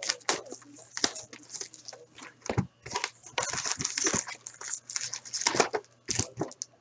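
Hands opening a cardboard hockey card box: cardboard and pack wrappers crinkling and rustling, with sharp clicks of handling. The rustling is densest in the middle.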